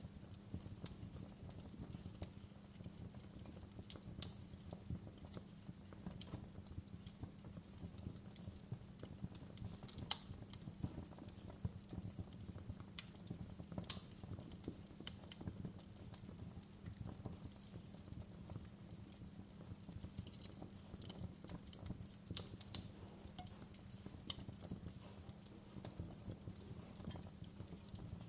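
Wood fire in a fireplace crackling: irregular sharp pops and snaps over a steady low rumble of the flames, with a few louder pops scattered through.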